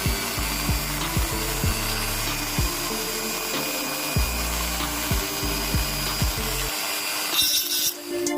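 Mini grinder whirring as it grinds away the plastic guard under a toy locomotive's front, shortening it so the engine runs smoothly; background music with low falling bass notes plays underneath.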